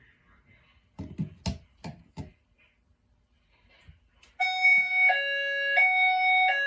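A few sharp knocks, then about four seconds in a fire alarm sounder comes on with a loud electronic hi-lo tone, alternating between a higher and a lower pitch about every two-thirds of a second.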